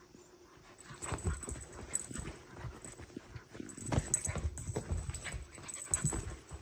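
A Thai Ridgeback puppy scuffling and rustling close to the microphone, with irregular knocks and thumps beginning about a second in.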